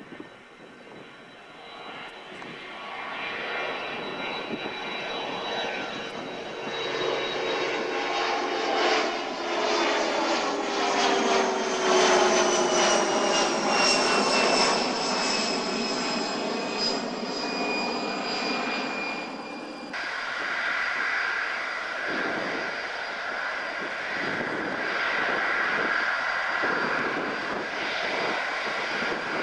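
Rear-engined business jet passing close overhead after take-off: a jet whine that builds and falls steadily in pitch as it goes by. About two-thirds of the way through it cuts abruptly to the steady whine of a Boeing 747's four engines running on the runway.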